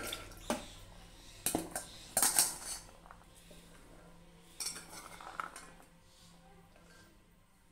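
Chickpeas tipped from a metal bowl into an aluminium pressure cooker, clattering against the metal. The bowl knocks on the cooker's rim several times, loudest about two seconds in, with a few fainter knocks around five seconds in.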